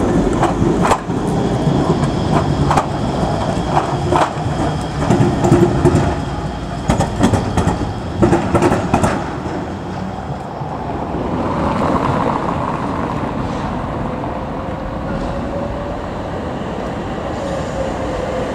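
A Leoliner low-floor tram running close past, its wheels clacking sharply and irregularly over rail joints and crossings for about nine seconds. After that, a quieter, steady tram running rumble with a faint whine that rises and then falls near the end.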